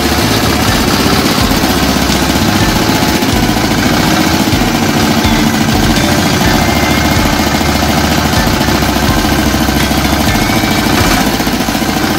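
A walk-behind tractor's single-cylinder engine running steadily at idle with a fast, even clattering beat.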